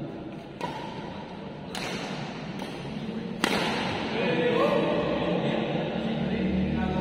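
Badminton shuttlecock struck back and forth with rackets: four sharp cracks about a second apart, the last and loudest a little past halfway. After that, voices and music come in louder.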